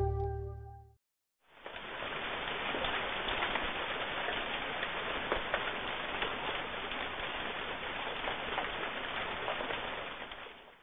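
Background music fading out, then after a short silence a steady crackling hiss, rain-like, that fades away at the end.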